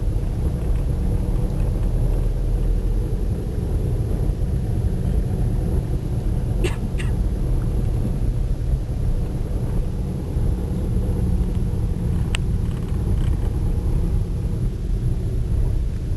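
Steady low rumble of a car driving, heard from inside the car. There are a few short clicks about seven seconds in and again near twelve seconds.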